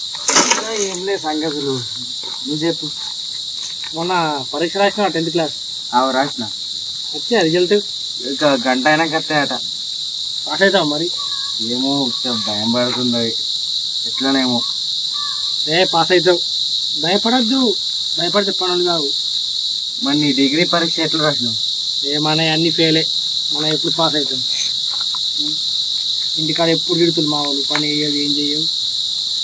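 Steady high-pitched drone of insects, with two men talking over it.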